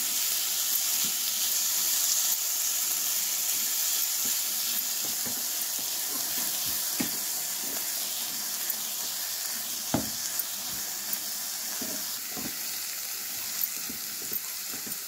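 Chopped vegetables sizzling in oil in a non-stick frying pan as they are stirred with a wooden spatula: a steady high hiss, with a few sharp knocks of the spatula against the pan.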